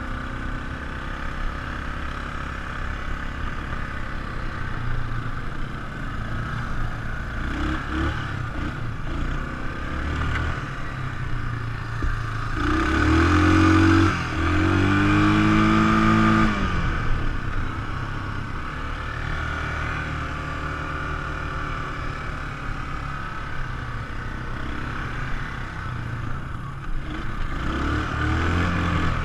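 ATV engine running under way, with a hard rev about halfway through that climbs in pitch, drops briefly, climbs again and then settles back.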